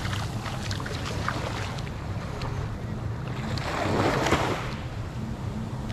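Sea surf washing on the beach, with wind on the microphone; a wave swells louder about four seconds in.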